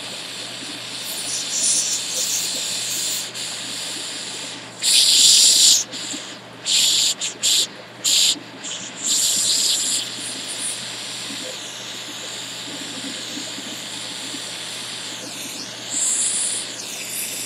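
Small jeweler's gas torch hissing steadily while heating a sterling silver prong joint for soldering, with several louder rushes of hiss, a few of them short and close together about halfway through.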